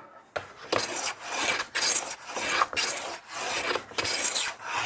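Hand plane shaving a wooden board in quick, repeated strokes, about two a second, starting a little under a second in. The board is being flattened down to a marked gauge line.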